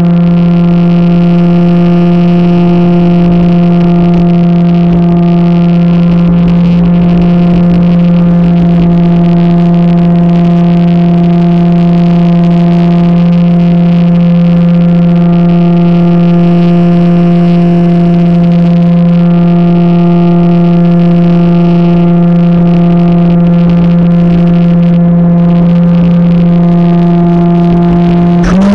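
RC plane's motor and propeller running at steady cruise throttle, a loud, constant drone heard through the onboard camera. Its pitch steps up slightly at the very end.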